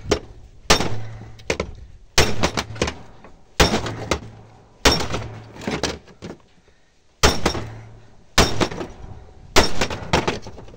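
Club hammer striking the plastic-covered metal column of a Belinea LCD monitor stand, seven heavy blows about a second and a half apart, each with a short clatter, knocking the plastic cover loose.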